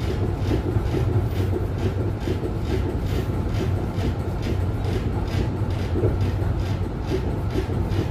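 Duewag GT8 articulated tram from 1960 running on its rails, heard from inside the passenger saloon. A steady low rumble comes with a quick regular clatter, about three to four times a second.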